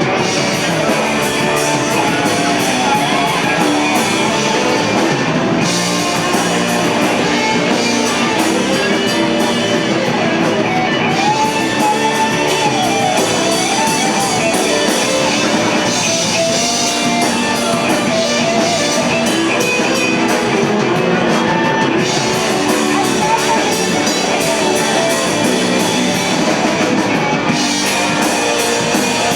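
Live rock band playing amplified guitar over a drum kit.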